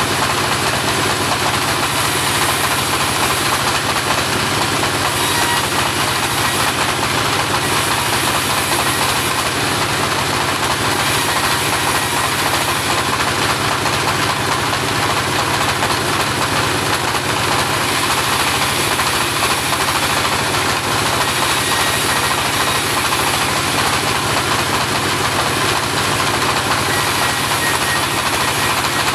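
Engine-driven homemade portable bandsaw mill running steadily and loudly, with no change throughout.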